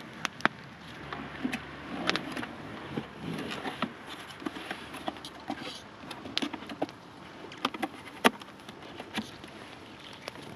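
Irregular sharp clicks and knocks, a few every second, with the loudest about eight seconds in, over a low rustling background.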